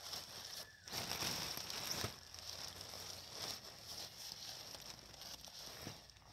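Thin nylon fabric of an inflatable air lounger rustling and crinkling as its open end is rolled down by hand to trap the air inside, loudest about one to two seconds in.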